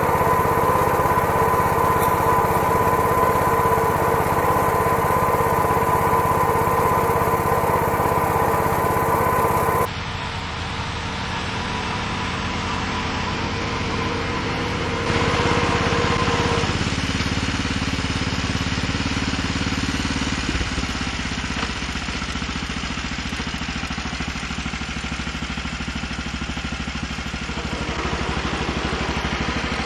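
The small engine of a homemade garden tractor runs steadily under load as the tractor pulls a two-bottom plow through garden soil. It is heard close up at first, then the sound drops to a duller, more distant running about a third of the way in.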